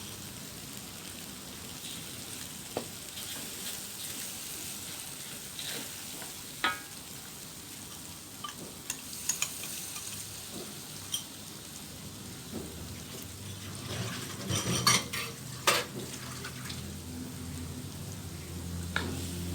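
Fish curry paste (curry powder and water) sizzling and frying in hot oil in a pot, with occasional clinks of a stirring utensil against the pot that come thickest about three quarters of the way through.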